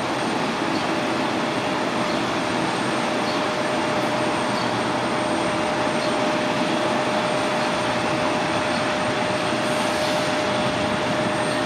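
Jet airliner engines running steadily at low power: a constant rushing noise with a steady mid-pitched whine.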